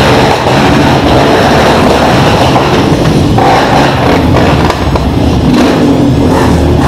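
Engines of a group of motorcycles and quad bikes running close by at low speed, loud and steady.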